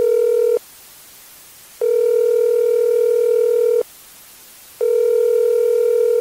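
Telephone ringing tone on the line: a steady, low-pitched tone that sounds for about two seconds at a time with one-second gaps. One tone ends just after the start, a second runs from about two to four seconds in, and a third begins near the end.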